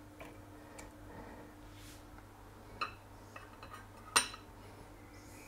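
A few sparse clinks of a serving utensil against the baking dish and plate while ratatouille is served up, the sharpest about four seconds in.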